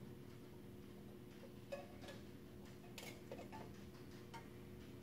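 A few faint metallic clicks and ticks, a couple of seconds apart, as pliers work a drum brake shoe's hold-down spring and pin into place, over a faint steady hum.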